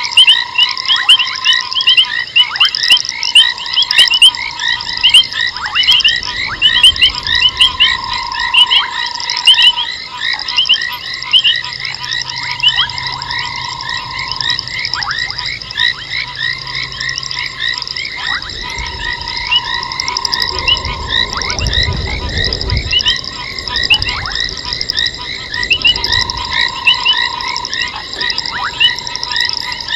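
Frog chorus at night: many frogs make quick, short chirping calls over a lower trill that keeps repeating, each about a second and a half long. A low rumble comes in for several seconds around the middle.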